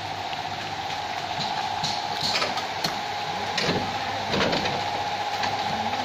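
Mitsubishi Canter truck's diesel engine idling steadily, with a few sharp knocks and clicks of hands working on the rear bumper and number plate.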